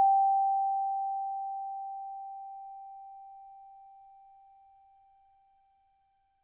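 A timer bell ringing out after being struck, marking the end of a 25-minute Pomodoro work session. It holds one clear, steady pitch that fades away over about five seconds.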